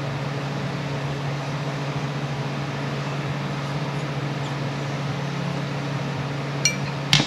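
Steady low machine hum, like a workshop fan or air conditioner running. A small click comes near the end, then a sharp knock of a part or tool being handled.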